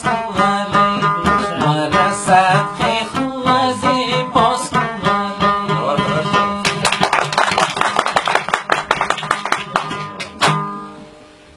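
Instrumental music on a plucked string instrument over a sustained low note, first playing a melody, then from about seven seconds in fast, dense strumming that stops about ten and a half seconds in and fades out.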